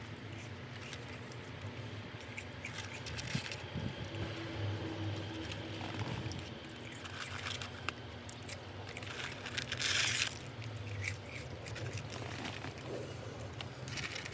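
Soft rustling and scraping of a paper fries carton and a drink cup while curly fries are being eaten, with scattered small clicks and a brief louder rustle about ten seconds in, over a low steady hum.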